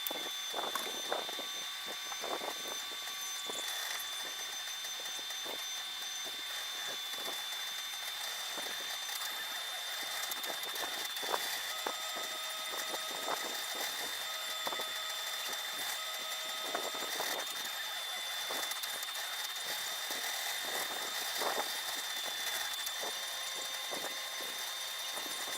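ROBO R1+ 3D printer running a print: a steady high whine from its stepper motors that shifts slightly in pitch now and then, with short on-off tones and scattered small clicks as the print head moves.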